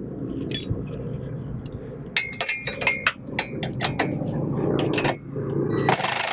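Metal wrench and socket clinking as the 15 mm nuts of a stock sway bar link are worked loose: a run of sharp metallic clicks, about three or four a second, over a low steady hum. A steady hiss starts near the end.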